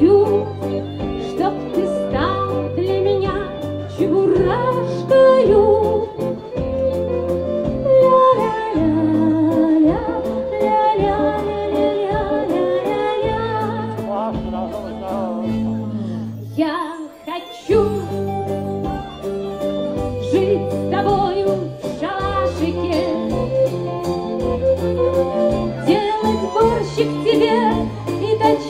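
Live band music: a woman sings over accordion, guitar and a steady repeating bass line. The music drops out briefly about two-thirds of the way through, then picks up again.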